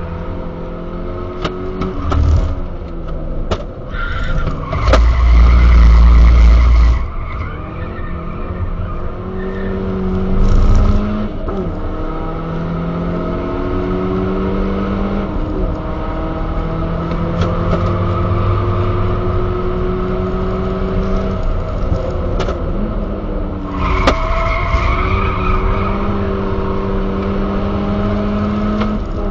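Turbocharged Skoda Octavia with a Supersprint exhaust and K&N air filter, heard from inside the cabin at track pace. The engine note climbs and drops back at each upshift, several times. Tyres squeal through corners about five seconds in and again near the end, with a heavy low rumble from about five to seven seconds in.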